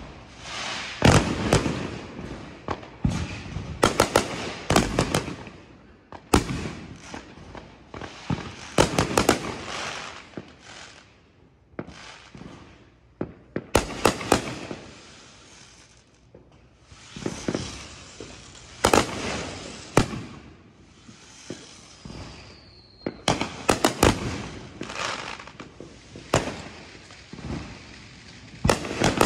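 Backyard aerial fireworks going off around the neighbourhood: about thirty sharp bangs at uneven intervals, some near and loud, some distant, many followed by crackling. A brief falling whistle comes about three-quarters of the way through.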